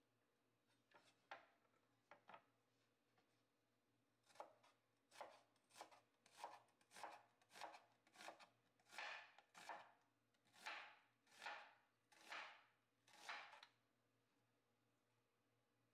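Chef's knife slicing an onion on a bamboo cutting board: a few light clicks, then from about four seconds in a run of quick cuts that slows toward the end.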